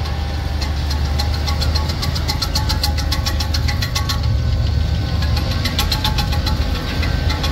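John Deere CH570 sugarcane harvester cutting cane, its engine giving a steady, loud drone. Over it, the chopper blades meshing make a rapid, even ticking at about five a second, with faint steady whining tones.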